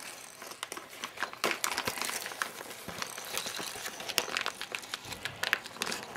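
Crinkling wrapping of a Christmas pet stocking as kittens paw and tug at it, a run of irregular crackles and rustles.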